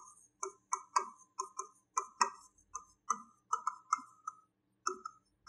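Pen strokes of a stylus on an interactive smartboard as handwriting goes on: a run of short taps and scratches, about three or four a second, uneven in spacing.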